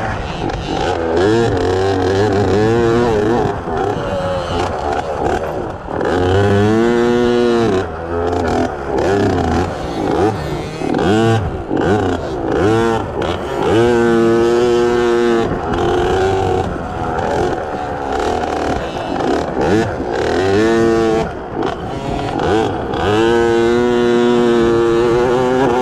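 A 50cc two-stroke kids' dirt bike engine revving, its pitch rising and falling again and again with the throttle. Several long climbs in pitch stand out.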